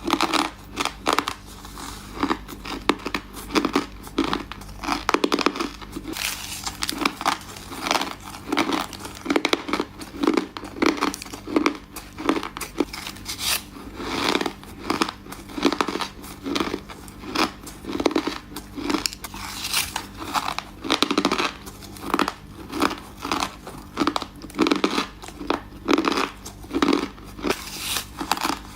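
Ice being bitten and chewed close to the microphone: sharp, crackly crunches repeating about once or twice a second.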